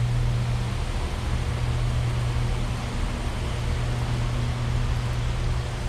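Steady low motor hum under an even rushing noise, typical of greenhouse ventilation fans running.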